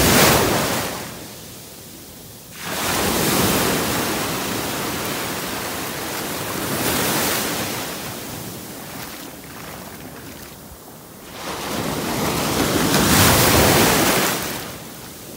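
Small sea waves breaking and washing up onto the shore, the surf hiss swelling and fading in about four surges.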